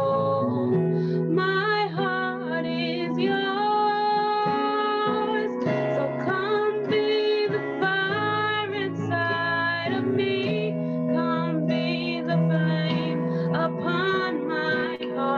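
A woman sings a worship song over held chords played on a keyboard.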